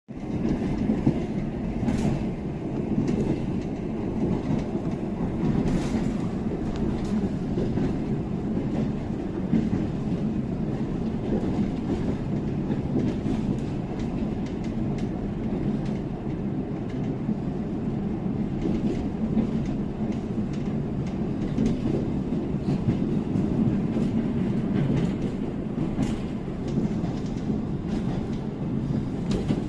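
Train rolling past steadily: a continuous low rumble with the wheels clicking over rail joints throughout.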